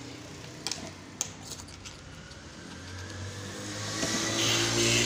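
A couple of light clicks of metal parts being handled, then a motor drone that swells over about two seconds and is loudest near the end.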